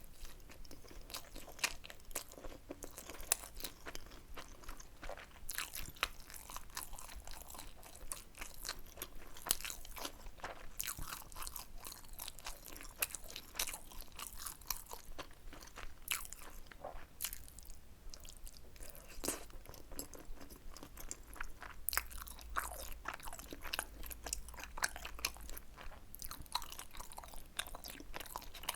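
Close-miked eating sounds from someone eating tteokbokki: steady chewing and biting with a dense run of small, wet, crunchy clicks.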